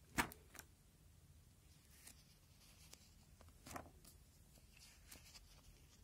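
Plastic-pocket pages of a display folder being flipped: a sharp slap of a turning sheet just after the start, a second page flap a little past the middle, and a few faint crinkles of the plastic between.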